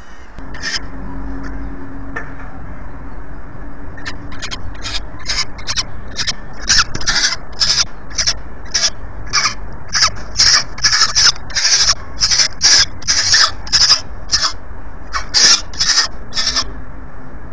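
Peregrine falcon calling: a long series of short, harsh, rasping calls, two or three a second, that stops just as an adult lands at the nest. A steady low rumble runs underneath.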